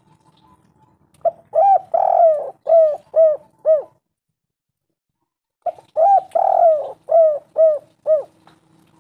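Spotted dove (tekukur) cooing: two call phrases a couple of seconds apart. Each phrase is a short note, then one longer drawn-out coo, then three or four short falling coos.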